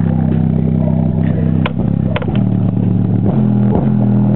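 Subwoofer playing a bass-heavy track at high volume: long, deep bass notes that change pitch every second or two. It is heavily distorted where the camera's microphone overloads.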